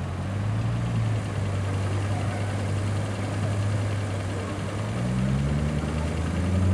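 A vehicle engine running slowly at low revs, speeding up a little about five seconds in.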